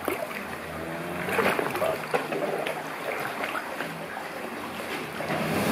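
Sea water sloshing and lapping against rock around a kayak in a narrow sea arch, with the splash of paddle strokes. It grows a little louder near the end.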